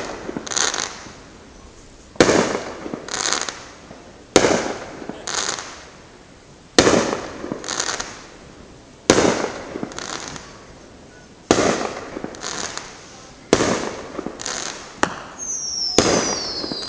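Aerial fireworks shells bursting in a steady sequence, a sharp bang about every two seconds, each followed a second later by a softer report or crackle. A falling whistle sounds near the end.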